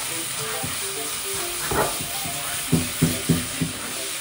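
Handheld shower head spraying water steadily over a wet cat during a rinse, a continuous hiss of water. Light background music plays under it, and a quick series of four short knocks comes about three seconds in.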